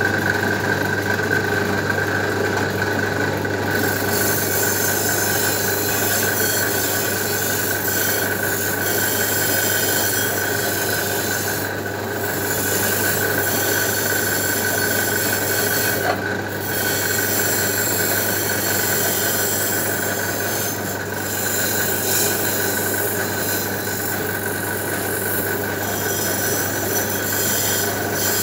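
Continuous scraping and rubbing on metal engine parts, cleaning them back for spray paint, over a constant steady hum.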